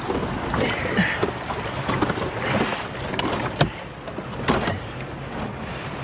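Water splashing and sloshing as a waterlogged Honda CBR motorbike is heaved upright out of a canal, its body streaming water, with two sharp knocks about three and a half and four and a half seconds in.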